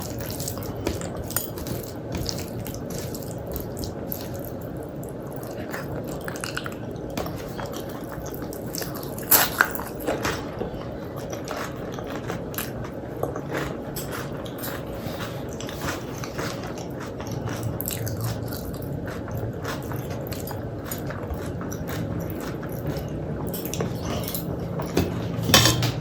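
Close-miked chewing and biting of a rice, dal and fried-vegetable meal, many small wet mouth clicks, with a few sharper, louder bites about nine seconds in and again near the end.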